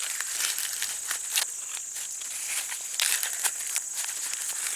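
Dry corn husks crinkling and tearing in irregular crackles as an ear of dent corn is husked by hand, over a steady high insect drone.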